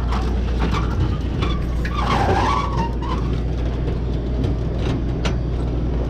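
Snack bags being handled: scattered clicks and a crinkling rustle about two seconds in, over a steady low hum.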